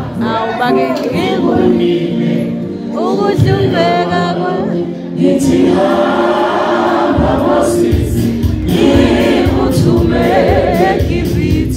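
Live gospel singing by a church praise team, voices over sustained keyboard chords; a deep bass comes in about seven seconds in.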